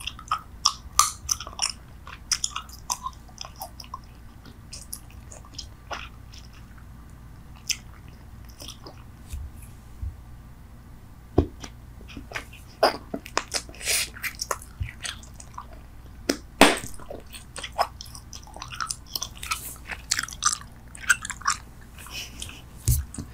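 Bubble gum being chewed close to the microphone: irregular mouth smacks and clicks, sparser for a few seconds early in the stretch and thicker in its second half.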